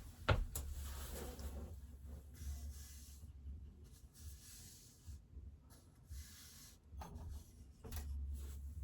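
Faint rustling and scratchy rubbing from someone handling things, with a sharp click just after the start and a couple of soft knocks near the end, over a low steady hum.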